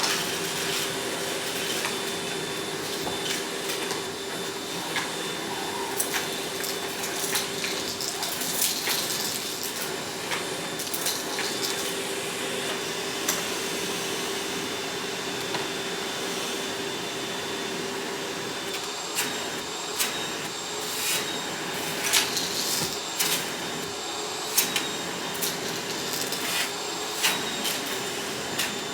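Vacuum cleaner running with a steady whining hum, broken by frequent irregular sharp clicks and crackles.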